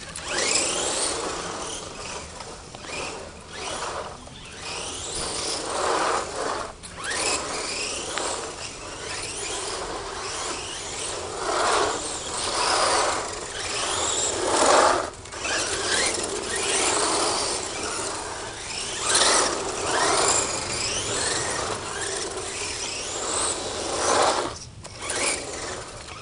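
1:16 RC truck driven by an airsoft AEG electric motor (EG1000 type) on a 7.4 V LiPo, running at high revs. Its high-pitched whine rises and falls again and again as the truck accelerates and slows.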